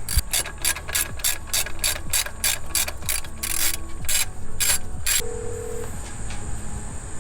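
Hand ratchet wrench clicking in quick, even strokes, about four clicks a second, as a bolt is worked loose while the alternator is taken off. The clicking stops about five seconds in.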